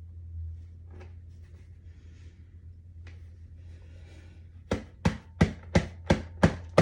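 Faint rustling and handling, then a quick run of seven sharp, evenly spaced knocks, about three a second, over a low steady hum.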